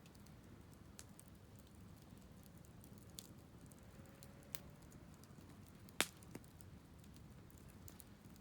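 Wood fire crackling faintly, with scattered small pops and one sharp, louder crack about six seconds in.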